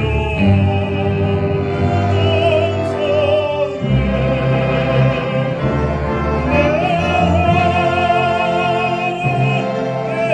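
Baritone singing in operatic style with an orchestra, holding long notes with a wide vibrato; one held note ends about four seconds in and another begins a couple of seconds later.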